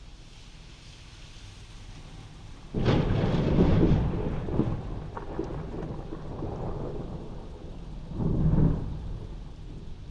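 Thunder heard from inside a house over steady rain: a sudden loud crack a little under three seconds in, rolling on as a crackling rumble, with a second swell about eight seconds in before it fades.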